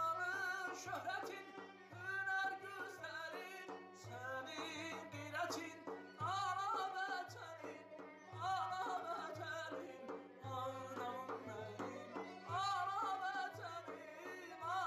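Azerbaijani mugham-style performance: a male voice sings wavering, ornamented lines to tar and kamancha, over low gaval frame-drum strokes about once a second.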